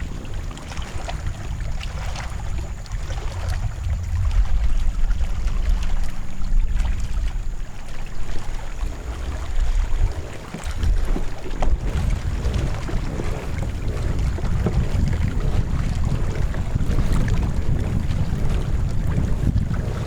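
Wind buffeting the microphone in an unsteady low rumble, over water sounds around a kayak.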